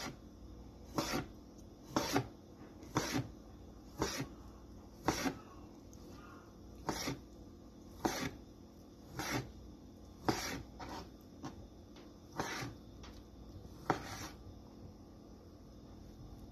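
Thin-sliced chicken breast being pounded on a cutting board: a run of sharp blows, roughly one a second, some coming closer together past the middle.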